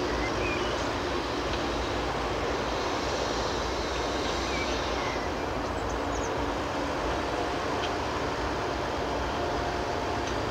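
Fendt 822 Vario tractor's six-cylinder diesel engine running steadily as it pulls a loaded dump trailer away over the dirt.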